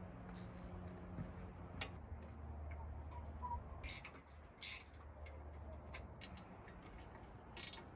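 Faint scattered clicks and brief rustles of parts being handled, typical of an Alaska chainsaw mill being reset to cut 1.5-inch boards, over a low steady hum.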